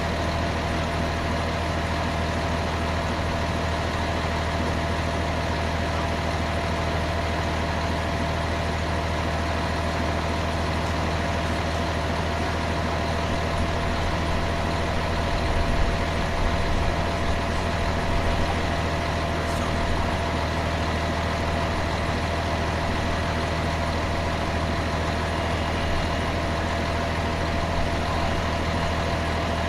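Engine idling steadily with a low hum and a faint steady whine, a few small knocks about halfway through.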